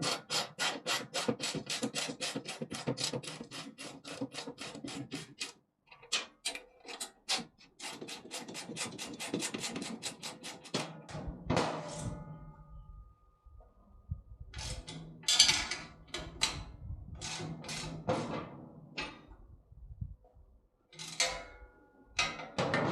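Ratchet spanner clicking in quick, even runs while nylock nuts are tightened onto the bolts of a steel motorcycle wheel chock, about five clicks a second, followed by scattered knocks and clatter of metal parts being handled.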